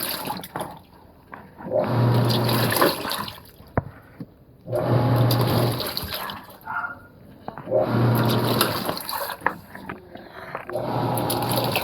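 Panasonic washing machine on its blanket wash programme, agitating: the motor hums and water sloshes in bursts of about a second and a half, with a pause between, repeating about every three seconds.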